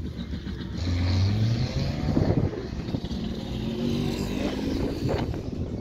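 A motor vehicle engine running and revving up, its pitch rising about two seconds in before it settles back to a steady run.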